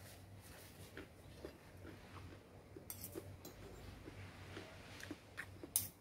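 Faint clinks of a metal spoon and fork against a plate, with a sharper clink just before the end.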